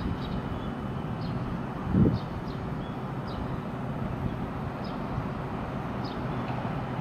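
Steady low hum of a JR Kyushu 813 series electric train standing at the platform, with one dull thump about two seconds in and a few faint, short, high chirps.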